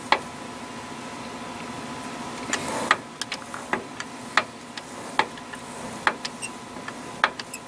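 Metal clicks and clinks from the spider gears and ring gear of a Ford 7.5-inch rear axle's differential being turned by hand, a sharp click every second or so over a faint steady hum.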